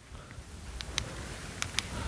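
A few faint light clicks and ticks, a car key and remote fob being handled.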